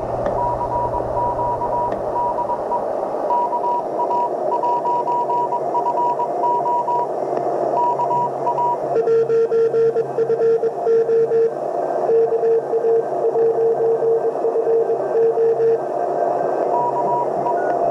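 Morse code (CW) signals received on a truSDX shortwave transceiver and played through an external speaker: keyed high-pitched dots and dashes over steady band hiss. About nine seconds in, the tone drops to a lower pitch, and near the end it returns to the higher pitch.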